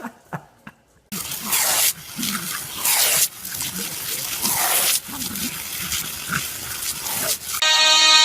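A dog's vocal sounds: a string of irregular, noisy bursts over several seconds, starting about a second in. Music starts near the end.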